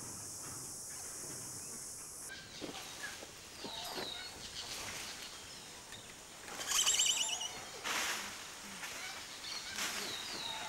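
Birds calling outdoors: short falling calls and, about two-thirds of the way through, a quick run of repeated chirps, with a few faint knocks. A steady high hiss stops suddenly about two seconds in.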